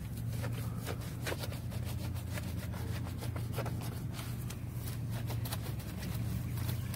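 Microfiber wash mitt rubbing and scrubbing a soapy alloy wheel, with scattered short scrapes and clicks, over a steady low hum.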